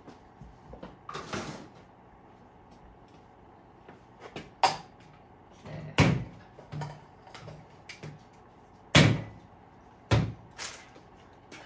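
Hard objects knocking and clattering as tools and items are handled and set down on a workbench: about five sharp knocks spread through the stretch, with smaller clicks and a rag rustling between them.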